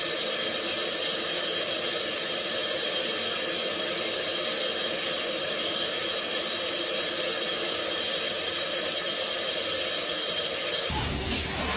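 Mazak Variaxis i-700 five-axis machining centre's spindle running at high speed as the tool cuts inside a bore: a loud, steady high hiss with faint steady tones in it, stopping suddenly near the end.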